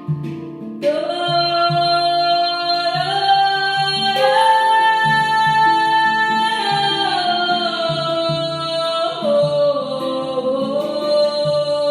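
Celtic-style music: a woman's voice singing long held notes that slide from one pitch to the next, over a plucked string instrument and a steady low drum beat. It starts abruptly about a second in.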